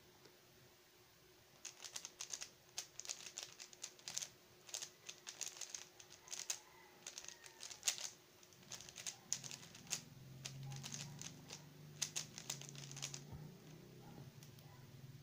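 Xin Lexin stickerless 3x3 speedcube being turned rapidly during a solve: quick runs of plastic clicks and clacks as the layers snap round. The clicks start about a second and a half in and stop about thirteen seconds in, as the solve ends.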